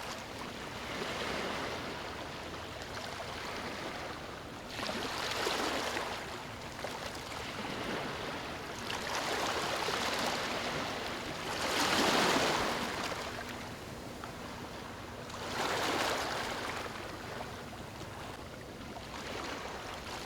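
Ocean waves: a continuous rushing wash that swells into a louder surge every few seconds and falls back, the biggest wave about twelve seconds in.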